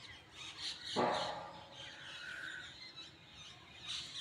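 Birds chirping and calling, short high chirps repeating, with one louder sound about a second in.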